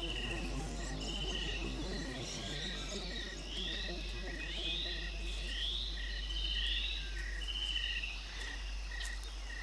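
Insects chirping: one short chirp repeating evenly about every two-thirds of a second, with longer trilled chirps above it and a few rising calls in the middle.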